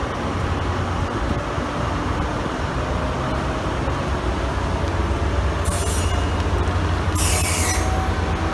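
Tri-Rail Brookville BL36PH diesel locomotive pulling a commuter train away from the station, its engine running with a steady low rumble. Brief bursts of hiss come about halfway through and again near the end.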